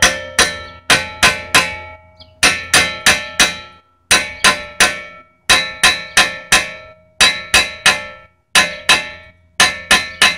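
Hammer striking a 2010 Dodge Journey's rear disc brake rotor in quick runs of three or four blows with short pauses between, each blow ringing metallically. The rotor is being knocked loose to get it off the wheel hub.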